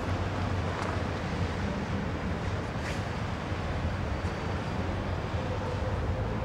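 Steady low rumble of ship engines on the water, with an even hiss of wind and a few faint clicks.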